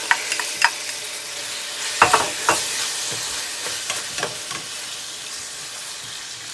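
Raw chicken going into a hot skillet of oil with sautéing garlic and onions: the sizzle swells as it lands and slowly eases. Sharp clinks and scrapes of a utensil on the pan come near the start and loudest about two seconds in, as the chicken is stirred.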